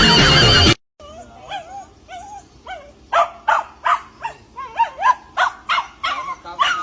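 A dog barking repeatedly: softer whines and yelps at first, then short sharp barks at about three a second. A snatch of music cuts off just before the barking begins.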